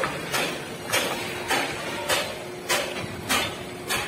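Footsteps crunching on loose dirt and gravel while walking down a slope, about one step every 0.6 seconds, over a faint steady engine hum from a working mini excavator.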